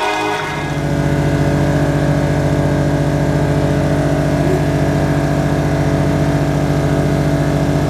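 An engine running steadily at an even speed, with a fast, regular throb.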